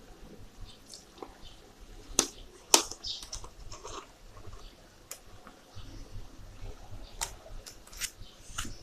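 Irregular clicks and knocks. The two loudest come close together about two seconds in, and more follow near the end.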